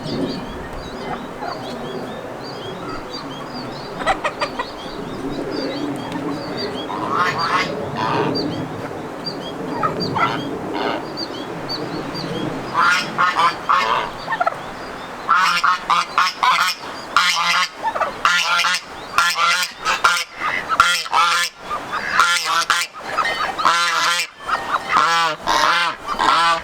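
Geese honking, a few scattered calls at first, then many rapid calls overlapping from about halfway through.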